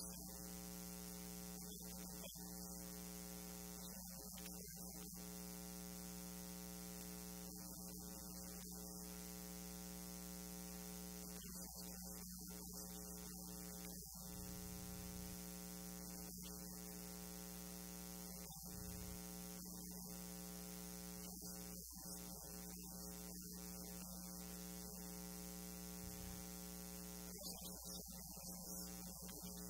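Steady electrical mains hum with a buzzy stack of overtones and a faint hiss; no speech comes through.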